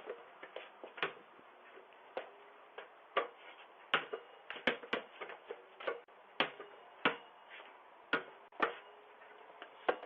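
Irregular sharp taps and clicks, roughly one a second, some in quick pairs, over faint steady hiss.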